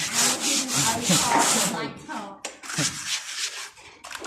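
Quick back-and-forth rasping strokes of a hand tool working a surface, about four strokes a second, in two runs with a short pause between.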